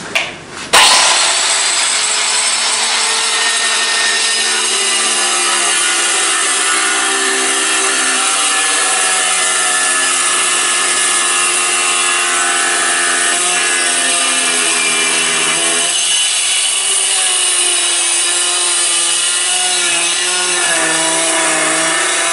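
Handheld electric tile cutter starting about a second in, then running steadily as its blade cuts through a floor tile. Its whine shifts in pitch now and then as the load on the blade changes.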